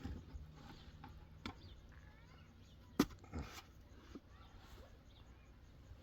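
A few sharp knocks over a faint background; the loudest, a single hard strike, comes about halfway through.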